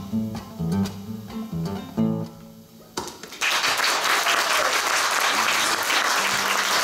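Acoustic guitar strumming the closing chords of a song. The chords die away about three seconds in, and then an audience breaks into steady applause.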